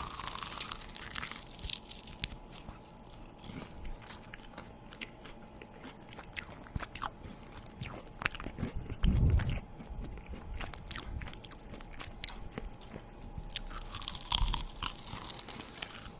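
A person chewing and biting crunchy food close to the microphone: many small, irregular crunching clicks. There is a short low thud about nine seconds in.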